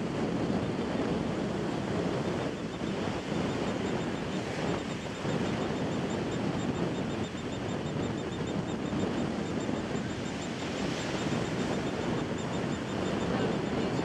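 Steady wash of surf with wind buffeting the microphone, and faint rapid high calls from a royal tern squawking at another tern.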